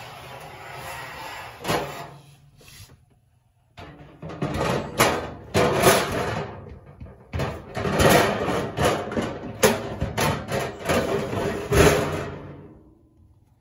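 The stainless steel bottom drawer of a Samsung range being fitted back onto its rails and slid shut: metal scraping and rattling, with several sharp knocks, in two stretches with a short pause between.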